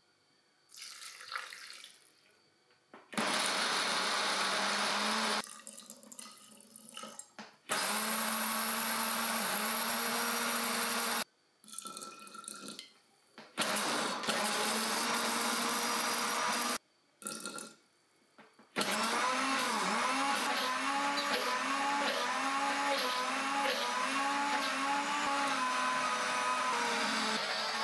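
A countertop blender runs in four bursts with short stops between, grinding soaked cashews with water into a smooth cream. In the last and longest run, the motor's note wavers about once a second as the thickening mixture churns.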